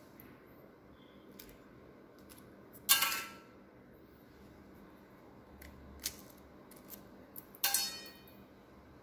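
Stainless-steel kitchenware clinking as it is handled: two sharp clinks with a brief ring, about three seconds in and near the end, and a few faint taps between.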